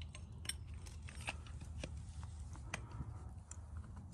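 Faint scattered clicks and small ticks, several a second and irregular, over a low steady rumble.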